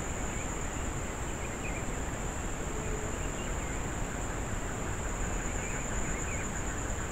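Insects trilling steadily in one unbroken high-pitched tone over a constant hiss.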